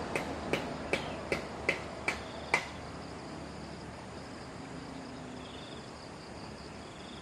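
A regular series of sharp clicks, about three a second, that stops about two and a half seconds in. After it comes faint steady outdoor background with a couple of short, faint high buzzes.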